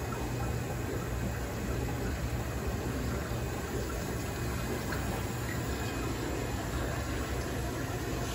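Steady bubbling and running water from an aquarium's aeration and filter, over a low steady hum.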